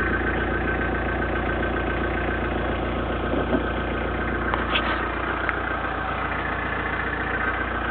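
Ford Escort Mk3 1.6 D's four-cylinder diesel engine idling steadily, with a couple of light clicks about halfway through.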